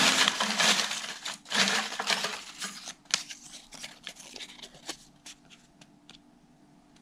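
Folded paper slips rustling and crinkling as a hand stirs through a heap of them in a metal tray. The sound is busiest in the first few seconds and thins to a few scattered crinkles.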